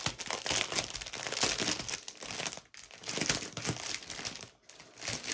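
Small plastic packets of diamond-painting drills crinkling as they are handled and opened, in irregular crackly bursts with two short breaks, a little under three seconds in and again near the end.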